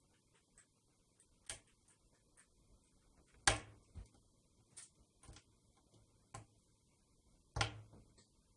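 Scattered light knocks and clicks of objects being handled, irregularly spaced a second or so apart, the loudest about three and a half seconds in and another near the end.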